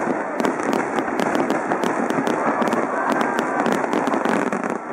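Aerial fireworks shells bursting in quick succession: a dense, unbroken run of sharp pops and crackles from glittering crackle stars.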